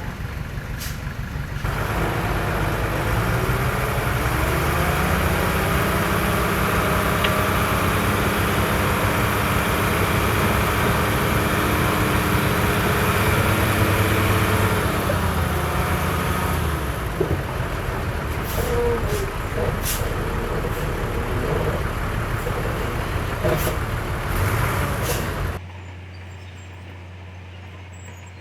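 Heavy diesel earthmoving machinery running under load, its engine revving up a few seconds in and holding high, with several sharp knocks in the latter part. Near the end the sound cuts to a quieter, steady low hum.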